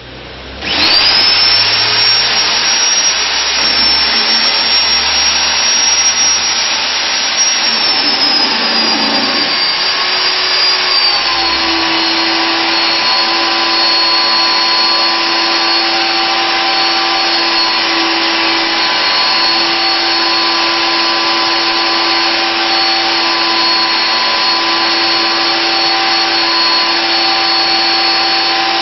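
Nitto Kohki Atra Ace magnetic drill motor switched on, spinning up to a high whine and running loudly. About ten seconds in the whine drops slightly in pitch and a steady lower tone joins as the automatic feed brings the cutter into the steel beam and it cuts under load.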